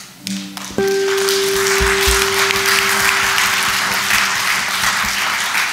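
Congregation applauding, a dense steady clapping that starts about a second in. A held tone sounds with the start of the applause and fades out over the next few seconds.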